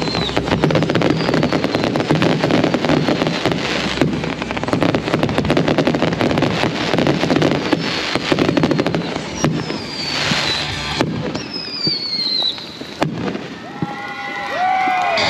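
Consumer fireworks finale: a dense barrage of crackling and banging from multi-shot cakes, with several short whistles falling in pitch. The barrage thins out near the end as the finale finishes.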